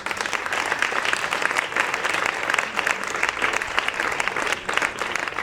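Audience applauding: a dense, steady mass of clapping.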